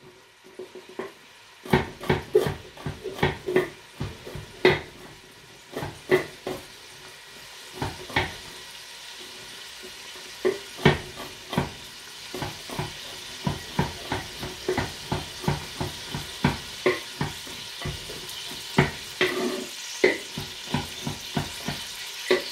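Kitchen knife chopping garlic cloves on a wooden cutting board: a series of sharp knocks, few and irregular at first, then quick and close together in the second half. Under them, onions frying in a pot with a steady sizzle that grows louder partway through.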